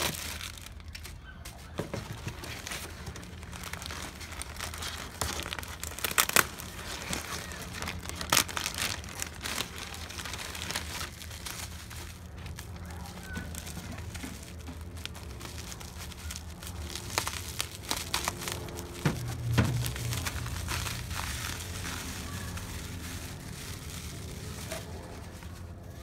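Plastic packaging crinkling and rustling as it is handled and unwrapped, in irregular crackles, over a steady low hum.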